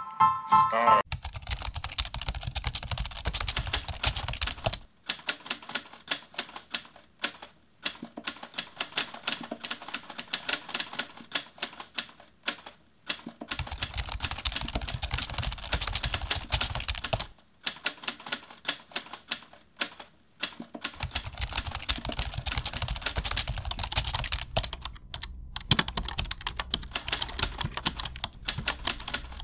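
Fast keyboard typing: a dense run of key clicks, broken by brief pauses every few seconds.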